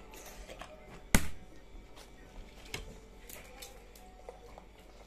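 Metal fork clinking against a ceramic plate while eating: one sharp clink about a second in, then several lighter taps and clicks.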